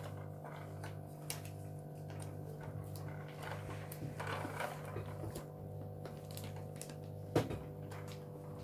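A steady low hum with a few faint clicks and taps of hands sticking decals onto a plastic Crocodile Dentist toy, one sharper tap a little over seven seconds in.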